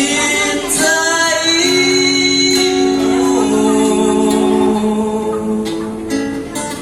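A singer holding long, drawn-out notes over instrumental accompaniment. The voice slides up into a note near the start, then holds a steady note for about three seconds in the middle.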